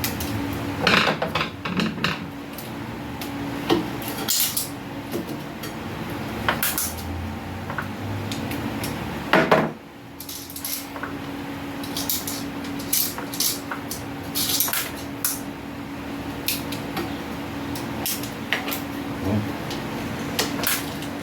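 Irregular metallic clinks, clicks and knocks of screws, tools and metal parts being handled while a bench grinder's motor is screwed back together, over a faint steady hum.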